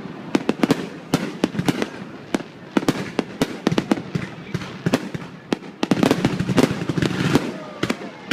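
New Year's Eve fireworks going off in rapid, irregular cracks and pops, heaviest about six to seven seconds in.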